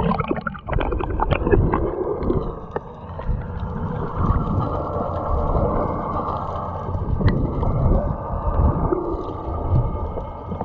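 Muffled underwater sound from a camera held beneath the sea surface: a low rumble of churning water near swimmers, with crackling bubbles and splashing as the camera goes under at the start.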